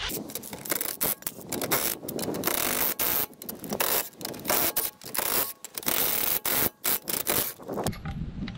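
Cordless impact wrench with a 21 mm socket hammering car lug nuts loose, in several bursts with short pauses between them. It stops shortly before the end.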